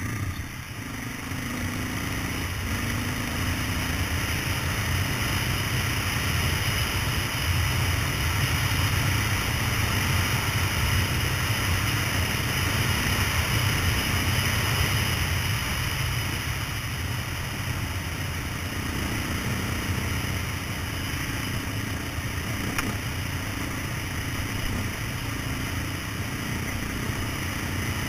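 Off-road motorcycle engine running steadily while the bike rides along a rough gravel dirt track, with wind rushing over the camera's microphone.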